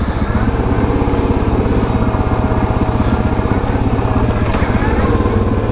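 Yamaha Grizzly 700 ATV's single-cylinder four-stroke engine running at low, steady revs with a rapid even pulse as the quad rolls down a steep slope.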